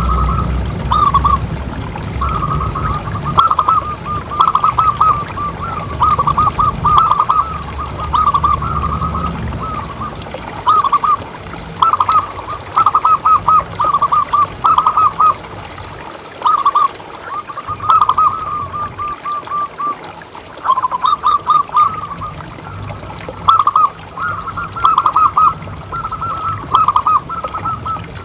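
Zebra dove (perkutut) cooing, phrase after phrase of quick, clustered notes with short gaps between phrases. A low rumble runs under the first ten seconds or so.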